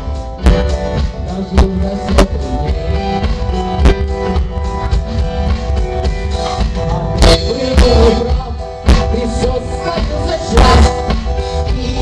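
Live rock band playing loudly through a PA: electric guitar, bass guitar, keyboard and an electronic drum kit.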